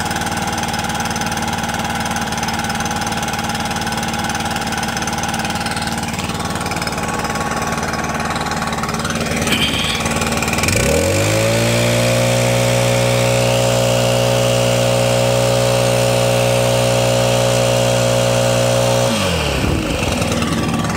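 Stihl BR800X backpack blower's two-stroke engine idling. About halfway through it revs up to a steady high speed, holds there for about eight seconds, then drops back to idle near the end.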